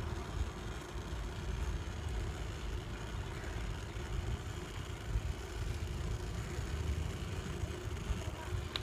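Steady low rumble of wind buffeting the microphone and bicycle tyres rolling on a paved path while riding.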